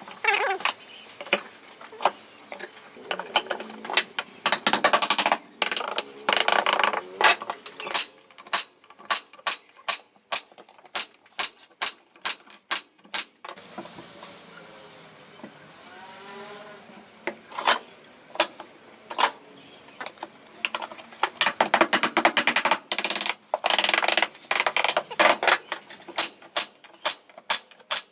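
Repeated sharp knocks and clicks, irregular and frequent, with stretches of rustling noise between them.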